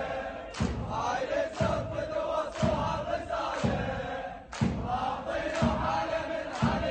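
A large crowd of protesters chanting together in Arabic, with a low thump about once a second marking the beat.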